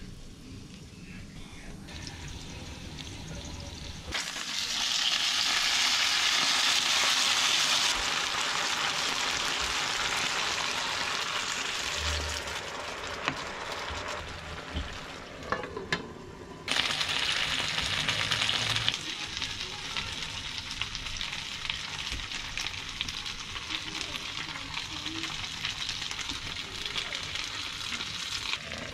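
Gyoza sizzling in an oiled frying pan. The sizzle comes in loud about four seconds in and slowly eases off. After a brief break it jumps up again, then settles into a steadier sizzle and bubble as the dumplings steam-fry in water.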